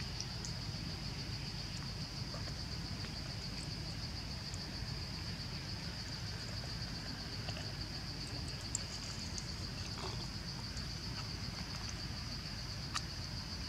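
Steady high-pitched drone of insects, unbroken throughout, over a low rumble with a few faint clicks.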